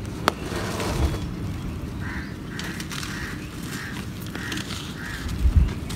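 Dry, gritty clods of packed soil crunching and crumbling as bare hands squeeze and break them, with soft thumps near the end as pieces drop. A bird calls about six times in a row partway through.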